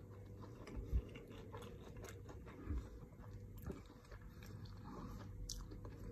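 A person chewing a bite of a chicken sandwich: faint crunching and small mouth clicks, with a couple of soft low thumps, over a steady low hum.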